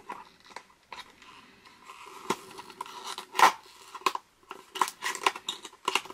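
Cardboard packaging being handled and opened by hand: scattered clicks, taps and scraping, with one louder click about three and a half seconds in.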